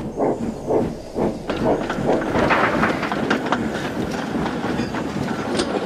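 Steam locomotive sound effect pulling away, chuffing at about two puffs a second, then running into a steady clatter of wagons over the rail joints.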